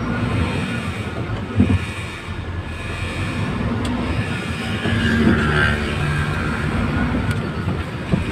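Howo heavy truck's diesel engine running steadily while driving, heard from inside the cab, with a single knock about one and a half seconds in and the engine a little louder around the middle.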